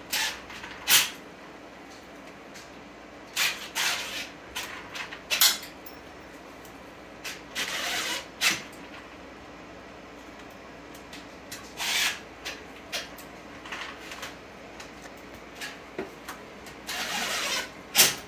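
Cordless drill driving screws through a steel mini-split wall bracket into plastic anchors in a concrete block wall, in a series of short bursts, with a longer run of about a second near the end.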